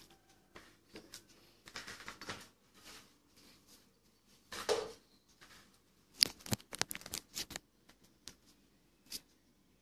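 A broom scraping and a plastic dustpan clicking and knocking on a tiled floor, in scattered short bursts, with a quick run of sharp clicks near the end.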